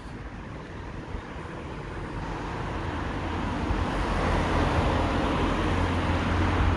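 A car passing close on the street, its engine and tyre noise building up over a few seconds and staying loud near the end.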